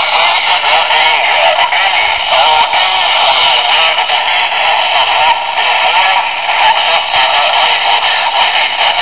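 A handheld ham radio transceiver's speaker playing a voice received through the VO-52 amateur satellite, off-tune and distorted with steady hiss, the kind of garbled, pitch-shifted sound a single-sideband signal makes when Doppler drift has moved it off the set frequency.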